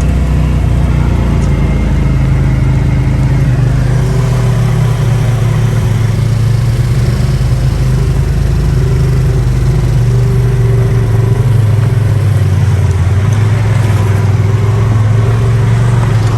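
Polaris RZR side-by-side's engine running loud and steady under load; its note rises about two seconds in, then holds.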